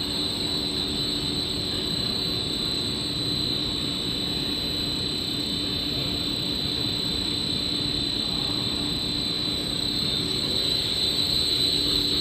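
Hot melt coating and extrusion machinery running: a steady mechanical drone with a constant high-pitched whine and a low hum.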